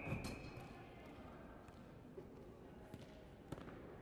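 A referee's whistle cutting off at the very start, then play on an indoor ice rink: scattered sharp knocks of ringette sticks and skates on the ice over the faint hum of the arena.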